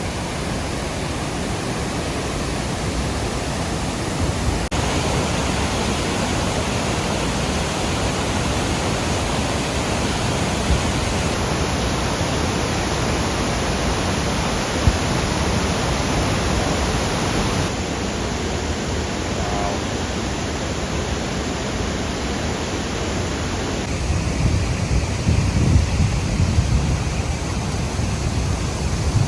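Eagle Falls in heavy spring snowmelt runoff: a deafening, steady roar of falling water. Gusts of low rumble come in near the end.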